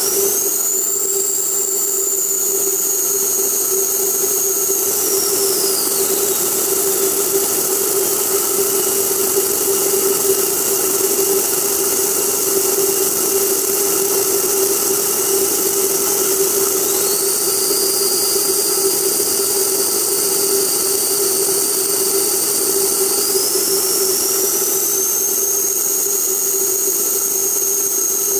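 C-5 Galaxy jet engines running: a steady hum under a high whine whose pitch drops about five seconds in, then climbs again in two steps later on, as the engines spool down and back up.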